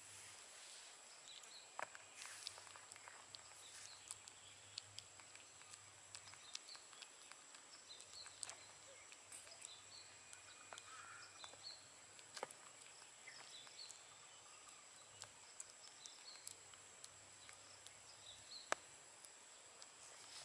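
Near-silent outdoor ambience: a faint steady high hiss with scattered small clicks and faint short high chirps, and one sharper click near the end.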